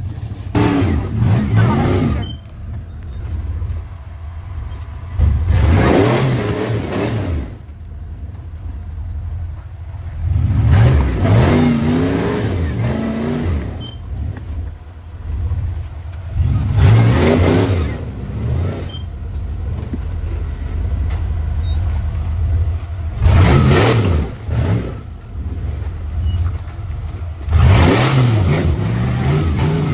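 Off-road Jeep's engine revved hard in about six bursts a few seconds apart, dropping back to a lower running sound in between, as the vehicle crawls through deep mud and over rocks.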